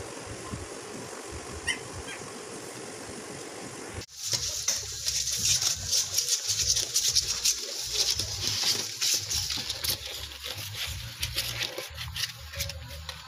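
Steady background noise with a few faint chirps, then, from about four seconds in, newborn Belgian Malinois puppies nursing: many quick squeaks, suckling clicks and rustling, louder than before.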